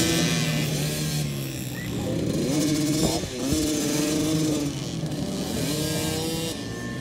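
Dirt bike engine under way, its revs climbing and dropping back several times as the rider works the throttle.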